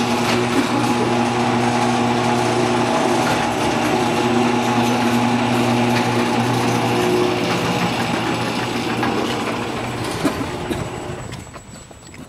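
Electric garage door opener running as it raises the door: a steady motor hum with a chain-drive drone, easing off and stopping about eleven seconds in.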